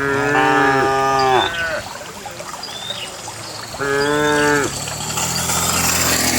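Cows mooing in a herd being driven along a path: overlapping calls near the start, then another single call about four seconds in.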